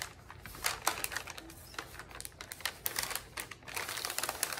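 Sheet of sticky drawer liner being handled and unrolled from its roll, its plastic crackling in quick, irregular clicks.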